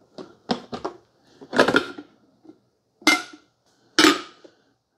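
Glass carafe being pulled out of a coffee maker and handled: a few quick clicks, a scrape about a second and a half in, then two sharp knocks of glass and plastic about three and four seconds in.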